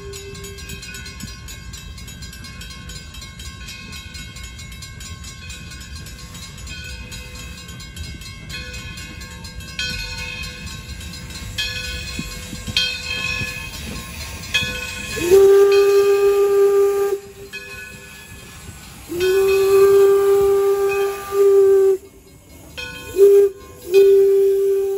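Steam locomotive approaching with a steady low rumble and hiss, then its steam whistle blows the grade-crossing signal about fifteen seconds in: two long blasts, a short one and a long one, each swelling up in pitch as it starts.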